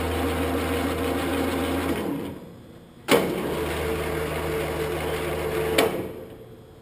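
Rapid up/down drive of the wheel head on a 1945 Blanchard 18-36 rotary surface grinder, running with a steady hum and whine as the head is jogged. It stops about two seconds in, switches on again with a click about a second later, and cuts off with a click near the end.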